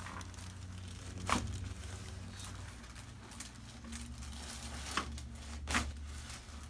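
Rustling and crinkling as a patient shifts and settles on a chiropractic treatment table, with a few sharper crackles, about a second in and twice near the end, over a low steady hum.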